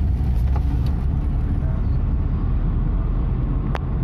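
Cabin sound of a Maruti Suzuki Alto K10 driving: the small three-cylinder petrol engine and tyres on the road make a steady low rumble. A single sharp click comes near the end.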